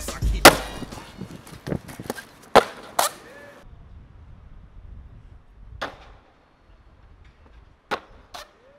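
Skateboard sounds on concrete: a run of sharp knocks from the board popping, hitting and landing in the first three seconds, the loudest about half a second in, then single knocks near six and eight seconds in, with faint wheels rolling over paving stones between them.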